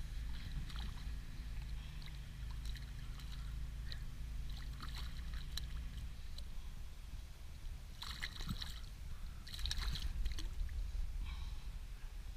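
Rainbow trout splashing at the surface beside an inflatable boat as it is reeled in, in two bouts of splashing in the later half. A steady low hum runs through the first half and stops about six seconds in.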